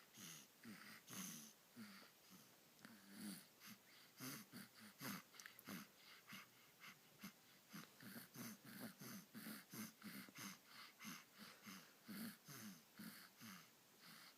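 A sleeping person snoring, with quick, wheezy, snuffling breaths following one another a couple of times a second.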